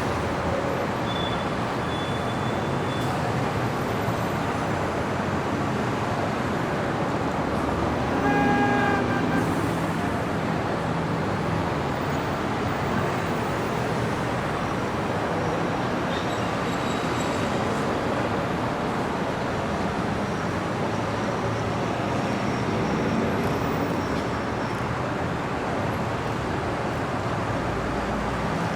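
City street traffic: a steady wash of passing cars and engine noise, with a car horn sounding once for about a second, some eight seconds in.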